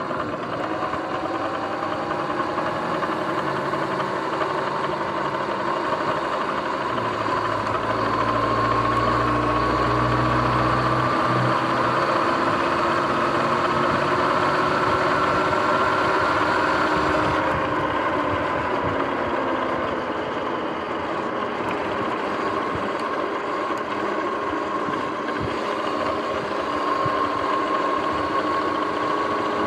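Sur-Ron X electric dirt bike running at speed: a motor and drivetrain whine that rises in pitch as the bike speeds up, drops a little past halfway and climbs again near the end, over a steady rush of tyre and wind noise.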